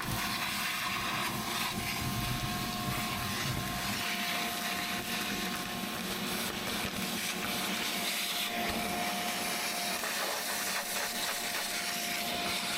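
Vacuum cleaner running steadily with a constant whine, sucking up dirt from inside a mini excavator's cab.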